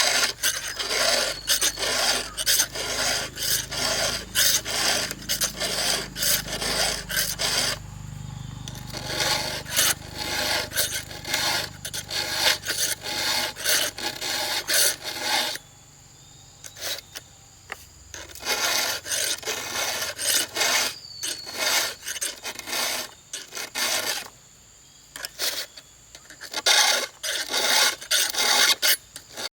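Wood being worked by hand with repeated rasping, sawing-like strokes, about two a second, in runs broken by a few short pauses.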